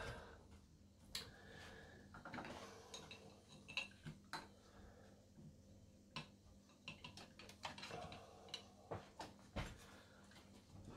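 Faint, scattered small clicks and taps of parts being handled inside a Betamax VCR's tape deck, around the head drum assembly, with short pauses between them.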